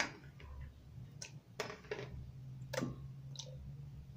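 Metal kitchen tongs clicking and tapping as roasted tomatoes are picked off a plate and dropped into a glass blender jar: about five light, sharp clicks spaced through a few seconds.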